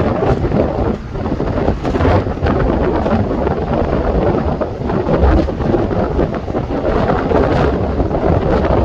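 Waves breaking and washing over a stone breakwater: a continuous loud rushing with a deep rumble that swells and eases a little, and wind buffeting the microphone.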